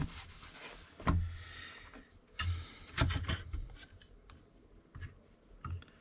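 Workbench handling sounds: a cloth rubbing over a magnifying lamp's housing, with several sharp knocks and clicks as the lamp and parts are moved and set in place, about a second in, twice around the middle, and once near the end.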